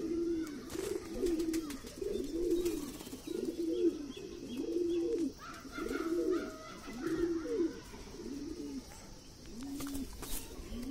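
Domestic pigeons cooing: a steady run of short low coos, roughly one a second, with a couple of sharp clicks.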